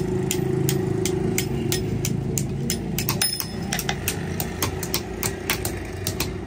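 A motor running steadily with an even hum, with many sharp metallic clicks and knocks scattered irregularly over it.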